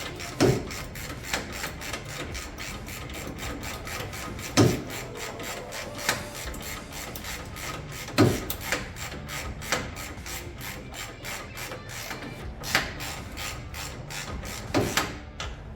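Socket ratchet clicking in quick, even runs of ticks while suspension bolts are tightened, with a few heavier clunks from the tool every few seconds.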